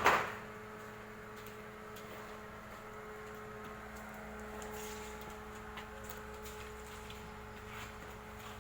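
Small stick welding machine humming steadily, after a short loud burst right at the start.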